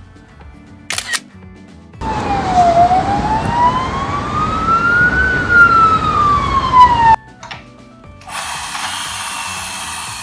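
A toy police car's electronic siren: one slow wail that dips, climbs and falls again over about five seconds above a rasping noise, then cuts off abruptly. A click comes about a second in, and a steady high whirring hiss fills the last two seconds.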